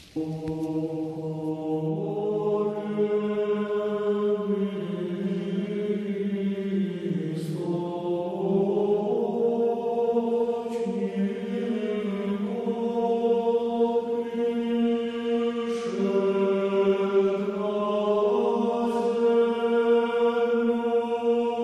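Background music of voices chanting in long, held notes, the pitch shifting slowly every few seconds.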